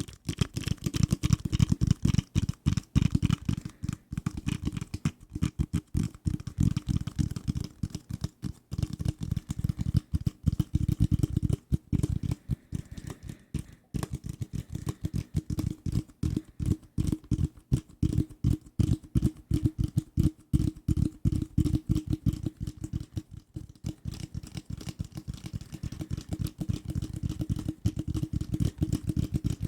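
Fast, hard fingertip tapping on assorted desk objects close to the microphone: many dull thuds a second in a busy, uneven rhythm, broken by a few short pauses.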